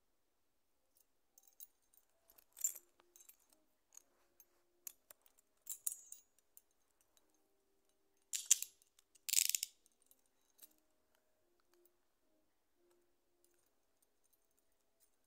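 Small metal keys on a key ring and carabiner jingling and clicking as they are handled, in scattered short bursts, with the two loudest jingles about eight and a half and nine and a half seconds in.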